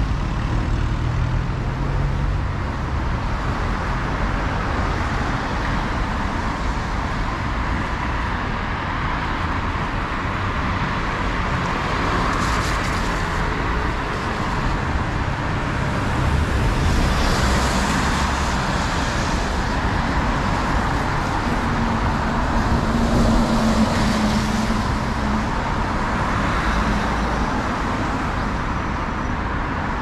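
Steady road traffic on a wet, snowy road: tyres hissing as cars pass, several swelling and fading past one after another, with a low engine hum from a passing vehicle about three-quarters through.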